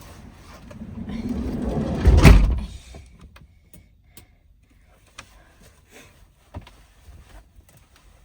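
A HiAce van's sliding door rolls along its track and slams shut about two seconds in, followed by a few light clicks and knocks.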